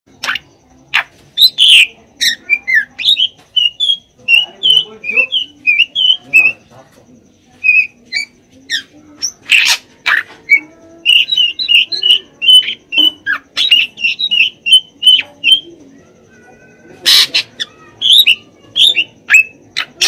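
Caged drongo (srigunting) singing in full voice: quick runs of short whistled notes, broken by loud harsh calls about a second and a half in, around ten seconds in, and near the end.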